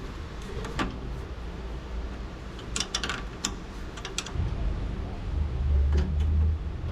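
Scattered clicks and clinks of hand tools on metal, a cluster of them midway, with a low rumble building in the second half.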